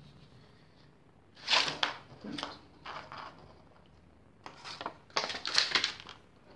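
Thin clear PET bottle plastic crackling and crinkling as it is handled and shifted, in several short bursts, the loudest about a second and a half in.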